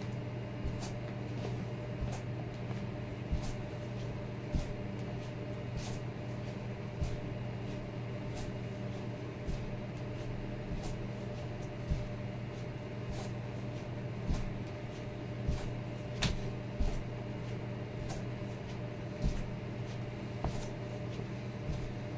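Soft knocks in a steady rhythm, about one every second, from repeated donkey-kick reps with ankle weights, over a steady low hum.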